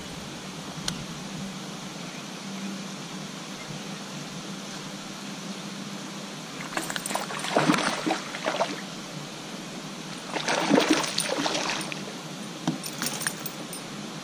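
A small hooked bass splashing at the water's surface as it is reeled in, in three bursts: two longer ones in the second half and a short one near the end.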